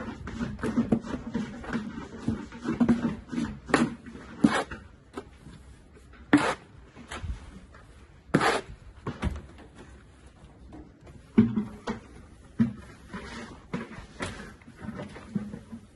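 Steel plastering trowel working wet mortar on a wall and scraping against a hawk board: an irregular series of short scrapes and knocks, a few of them louder.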